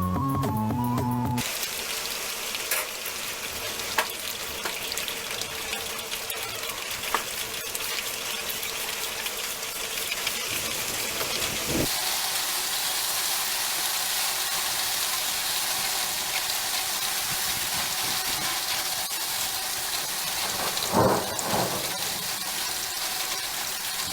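A steady hissing spray, with a few light knocks and a brief louder patch near the end; background music cuts off about a second in.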